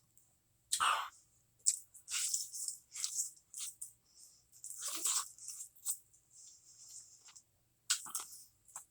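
Close-up crunching and chewing of crispy fried chicken, in irregular bites with short pauses between them.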